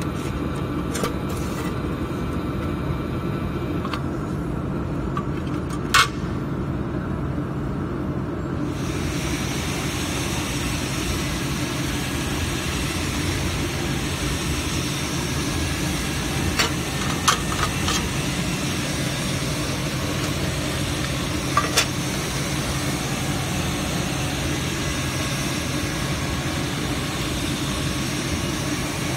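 Steady low machine hum, with a higher hiss joining about a third of the way in. A few short sharp clicks of metal plates being handled sound over it, one about six seconds in and a few more later.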